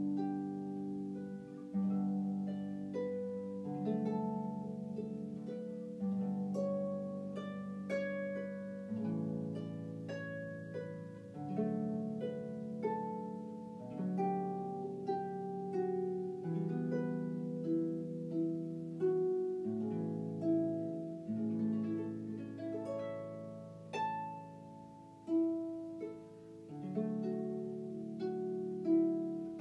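Solo harp music: plucked notes and chords, each note ringing and fading, with a melody over lower notes.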